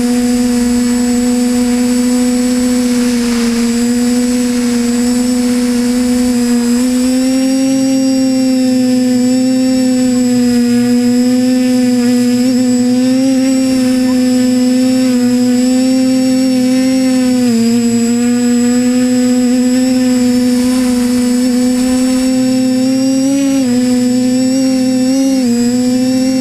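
TBS Discovery Pro quadcopter's motors and propellers running in flight, a loud steady buzzing hum heard from the drone's own camera. The pitch dips briefly about two-thirds of the way through and wavers near the end.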